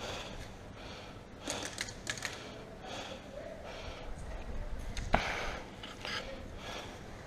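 Scattered sharp clicks and knocks from an airsoft game over a low rustle: a few clicks about a second and a half to two seconds in, and one sharper click about five seconds in.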